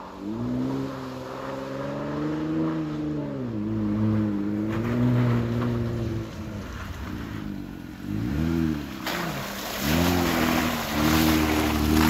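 Jeep Gladiator Mojave's engine revving up and down as the truck drives through muddy puddles, growing louder as it approaches. From about nine seconds in, a hiss of tyres churning wet mud joins it.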